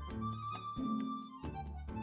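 Background music: a melody of held notes over a bass line that changes every second or so.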